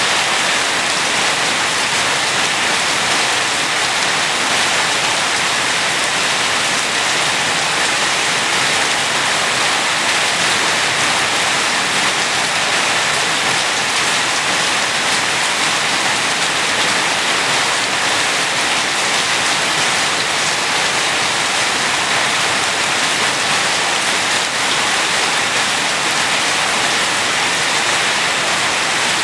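Steady rain falling, an even hiss of countless drops with no distinct single hits.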